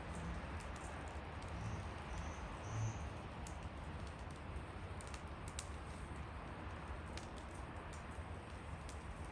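Wood fire crackling: scattered sharp pops and snaps over a steady rush of burning, with a couple of soft low thumps in the first few seconds.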